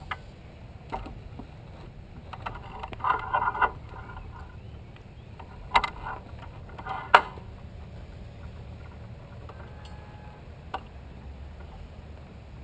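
Knocks, rattles and sharp clicks from a chopper motorcycle being handled and mounted by its rider, engine not yet running, over a steady low rumble. A burst of rattling comes about three seconds in, two loud sharp clicks around six and seven seconds in, and a single knock near the end.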